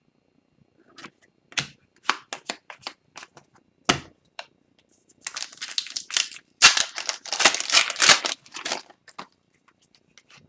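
Hockey trading cards being handled and flipped through, with a retail pack's wrapper crinkling: a string of separate sharp clicks and snaps, then a denser crackling stretch about five seconds in that lasts roughly four seconds.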